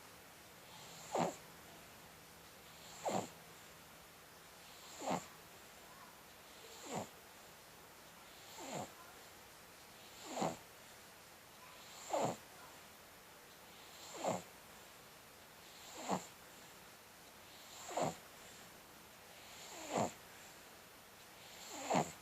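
Steady, rhythmic snoring: a short, sharp snore about every two seconds, twelve in all.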